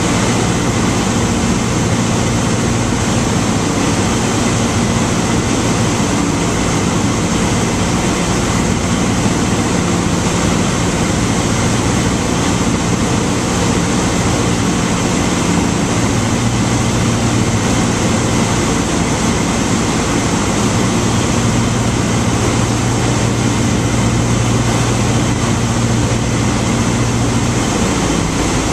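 Cessna 152's four-cylinder Lycoming O-235 engine and propeller running steadily, heard from inside the cabin with a constant rush of airflow noise over it.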